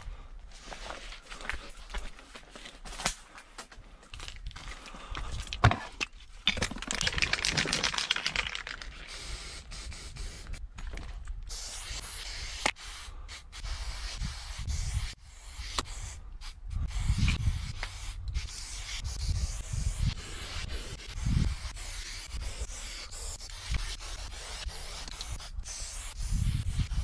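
Aerosol spray-paint cans hissing in short and longer bursts as a graffiti piece is outlined and filled in, with scattered clicks and knocks from handling the can.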